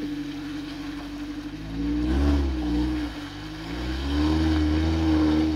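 Mitsubishi Pajero Pinin 4x4's engine revving under load as it pulls through deep mud. The revs rise and fall about two seconds in, then climb again and hold high from about four seconds in.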